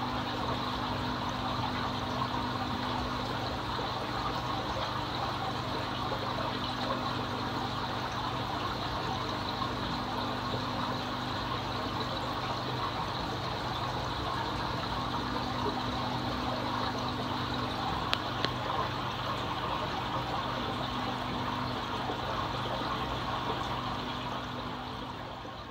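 Aquarium water circulating: a steady trickling rush of water over a low pump hum, fading out near the end.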